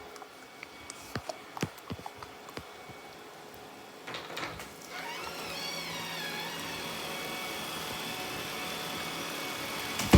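Robot vacuum: a few light clicks and knocks, then about halfway in its motor starts with a brief warbling whine and settles into a steady whir.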